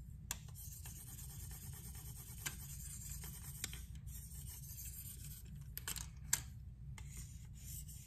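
A 1500-grit diamond stone in a KME guided-rod holder drawn in light strokes along a knife's AUS-10 steel edge, giving a faint steady scratching hiss, as one side of the edge gets a little more work near the heel. A few sharp clicks from the jig and holder come through, the loudest about six seconds in.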